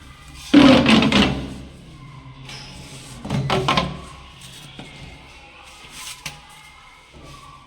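Two loud clattering knocks, the first about half a second in and the second about three seconds later, over faint background music.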